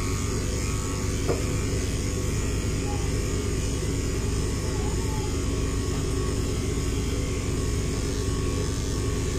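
Electric pet grooming clipper running with a steady, even hum as it shaves a cat's hind-leg fur.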